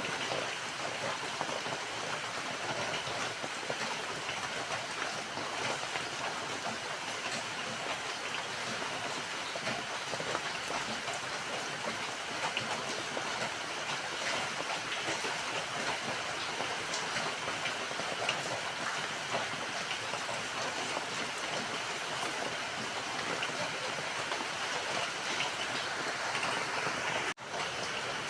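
Steady rain falling, a dense even patter of drops with no let-up. It cuts out for an instant near the end, then carries on.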